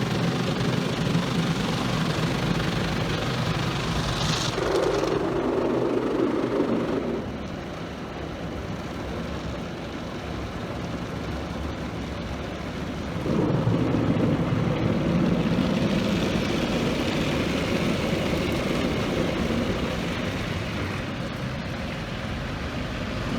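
Automatic car wash machinery running against the car, heard from inside the cabin: a loud rushing noise that eases off about seven seconds in and comes back loud about thirteen seconds in.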